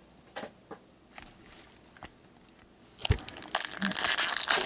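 An O-Pee-Chee hockey card pack wrapper crinkling and tearing as it is ripped open by hand, loud from about three seconds in after a few light clicks.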